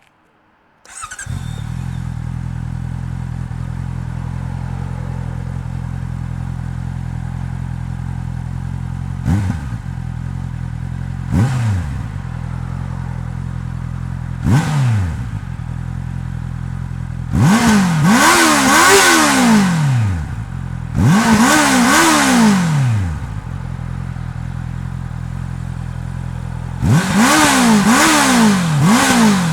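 Warm 2022 Honda CB650R's inline-four engine with its stock Euro 5 exhaust, started about a second in and idling steadily. It is blipped three single times, then revved in three runs of two or three quick revs each in the second half.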